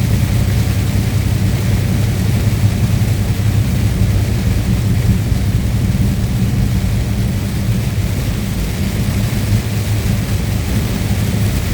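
A truck's engine and road noise heard from inside the cab while driving: a steady low drone with an even rush of tyre and wind noise above it.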